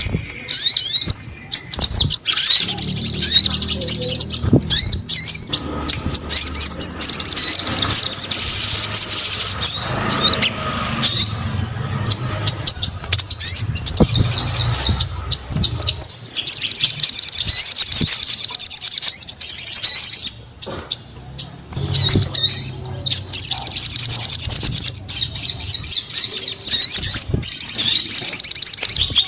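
A sogon songbird singing vigorously: long, fast, high chattering trills, each spell running for several seconds, with short breaks between them.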